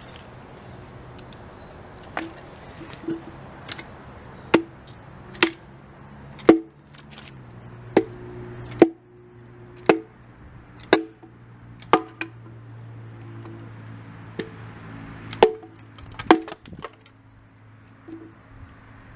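Hatchet chopping into wood, with sharp strikes about one a second at an uneven pace, each followed by a short ring.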